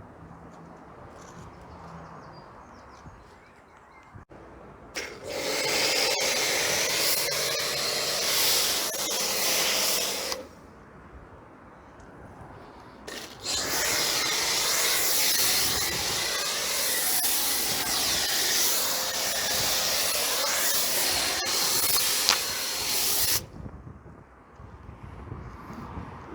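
Kärcher K7 pressure washer spraying water in two bursts, one about five seconds long and one about ten seconds long, each starting and stopping abruptly.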